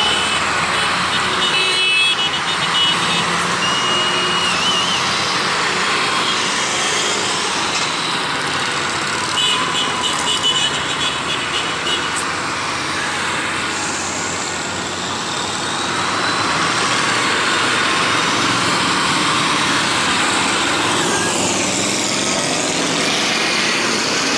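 A steady stream of touring motorcycles and trikes riding past in a procession, their engines running together in a continuous rumble, with individual bikes rising and falling in pitch as they go by near the end.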